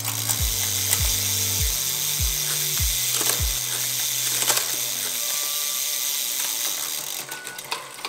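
Road bike drivetrain spinning on a stand: a Shimano Dura-Ace 12-speed chain runs over the cassette and derailleur, with the rear hub's freewheel ratchet buzzing in rapid clicks. A low beat of background music thumps about twice a second under it for the first few seconds.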